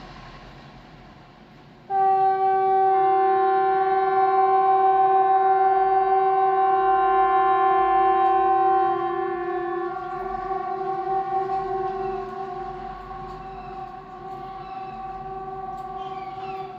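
Swedish 'Hesa Fredrik' outdoor warning siren sounding a steady held tone. It starts abruptly about two seconds in and is loud for about seven seconds, then carries on more faintly with a slightly offset second tone until near the end.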